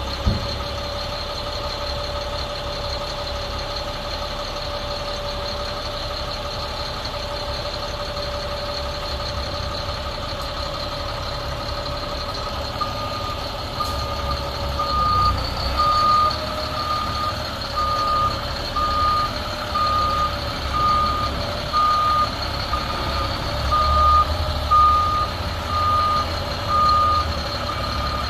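A 2005 Sterling LT8500 dump truck's Caterpillar C7 six-cylinder diesel running steadily with a constant whine. About halfway through, a backup alarm starts beeping a little faster than once a second and grows louder, while the engine note swells and eases in uneven surges.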